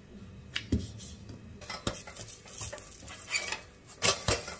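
Kitchen clatter while making parathas: a wooden rolling pin working dough on the counter and a spatula tapping and scraping a flat iron tawa, a handful of separate sharp knocks and clicks.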